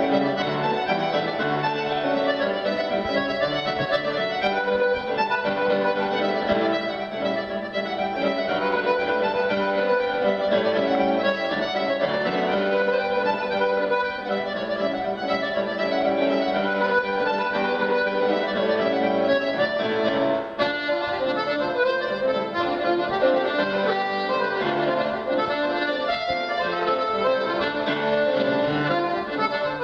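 Accordion and grand piano duo playing a contra dance tune, the accordion carrying the melody over the piano.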